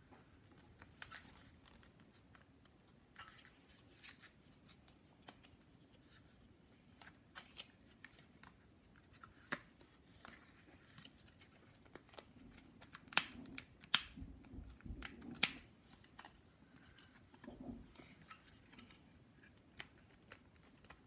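Scattered small plastic clicks and scrapes from handling and prying at the plastic body shell of a DJI Mavic Air drone during disassembly, with the sharpest clicks a little past halfway.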